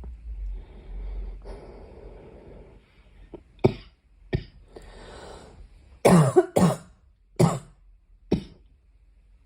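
A girl coughing: after a few seconds of soft breathing, about six sharp coughs, two single ones, a drawn breath, then a quicker run of coughs, loudest just past the middle.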